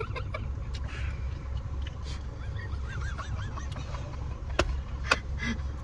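Steady low hum of a car's engine running, heard inside the cabin. Faint high squeaks come in the middle, and two sharp clicks come near the end.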